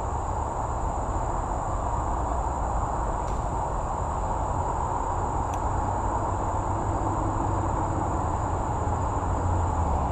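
Steady outdoor ambience: a continuous high, thin insect drone over a constant wash of low, rumbling noise. There are no distinct events.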